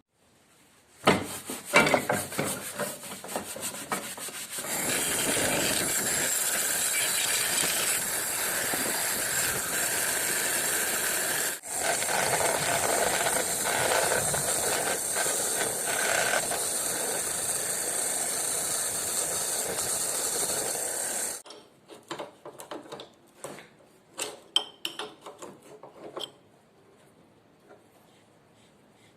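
Steady abrasive scraping, like sanding or rasping, on a part of an old drill being restored, running for about seventeen seconds with a brief break midway. Clicks and knocks of handling come before and after it.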